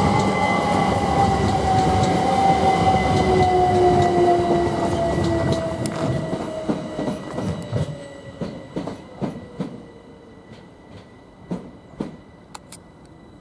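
Class 387 Electrostar electric multiple unit braking into the station: its motor whine falls steadily in pitch as it slows, over the rumble of the wheels. Then comes a run of clicks as the wheels cross the rail joints, and the whole sound fades as the train comes to a stop.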